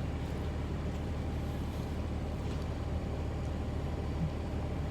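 Steady low engine drone, like a vehicle heard from inside, unchanging throughout.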